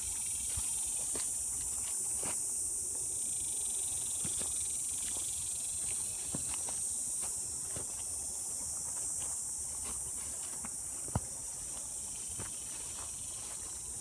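Steady high-pitched chorus of insects, with the soft crunch of footsteps through dry grass at a walking pace and one sharp click about eleven seconds in.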